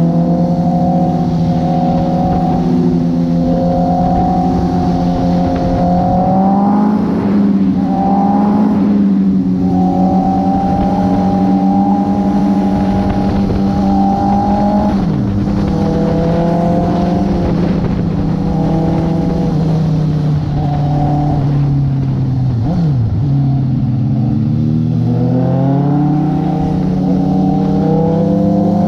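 Honda CB650R's inline-four engine running under way on the road, its revs climbing, breaking off briefly for gear changes, easing and climbing again, with wind rush over the camera.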